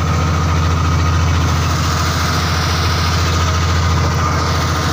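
Outrigger fishing boat's engine running steadily under way: a loud, even drone that holds one pitch throughout.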